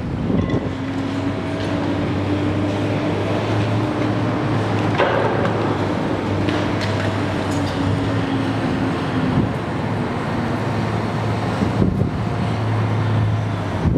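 High-reach demolition excavator's diesel engine running steadily, its hum wavering slightly in pitch as the long arm works, with a few short knocks, the sharpest about five seconds in.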